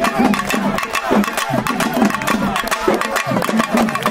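Hand drums beaten in a quick, steady rhythm, with voices singing along over the beat.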